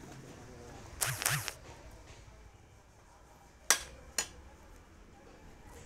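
Two sharp knocks about half a second apart, with a brief rasping noise a couple of seconds before them.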